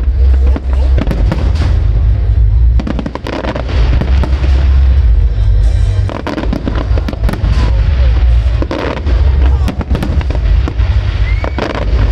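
Fireworks display going off continuously: many sharp bangs and crackles in quick succession over a heavy low rumble of shell bursts, with a short whistle near the end.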